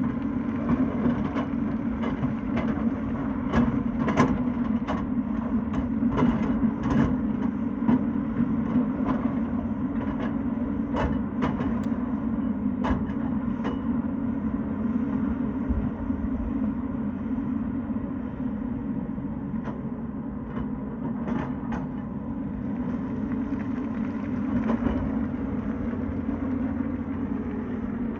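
Tata Hitachi excavator's diesel engine running steadily while digging, with repeated sharp clanks and knocks of the bucket and rock. The knocks come thickly through the first half and in a few short clusters later.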